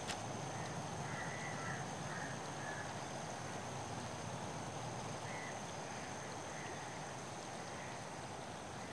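Quiet night ambience: a steady hiss with a thin constant high-pitched tone and a few faint short chirps, with a soft click right at the start.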